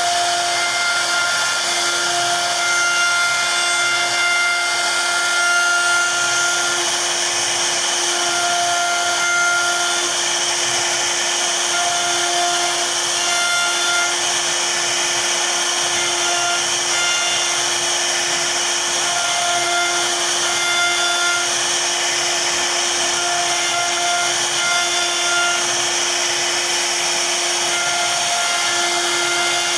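CNC router spindle running at speed, its bit carving a relief pattern into a wooden panel: a steady hiss of cutting with a whining tone that comes and goes as the bit moves.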